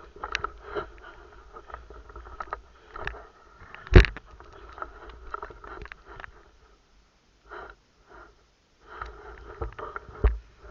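Breathing and rustling close to the microphone with scattered small clicks, and a sharp knock about four seconds in and another near the end.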